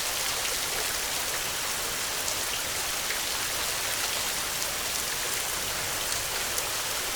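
Heavy rain falling steadily: an even hiss with scattered ticks of individual drops.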